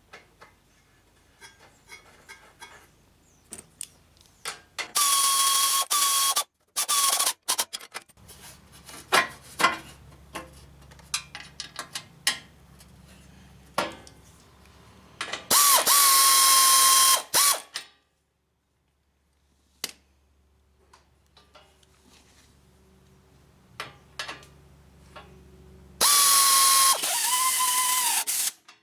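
A power tool's motor running in four short bursts of one to two seconds each, its pitch dropping as each one stops, with scattered light mechanical clicks in between.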